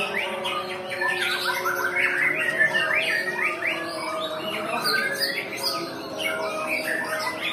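Many caged white-rumped shamas (murai batu) singing at once in contest: a dense, unbroken tangle of quick overlapping chirps and whistles.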